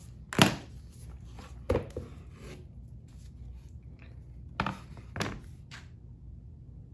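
Mahogany picture frame handled and turned over on a workbench, its wood knocking against the bench: one sharp knock about half a second in, then a few lighter knocks and taps, over a low steady hum.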